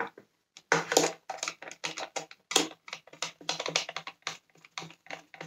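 Hard plastic parts of a Dyson Cinetic Big Ball vacuum's cyclone unit clicking and clattering in quick, irregular taps as they are handled and screwed together.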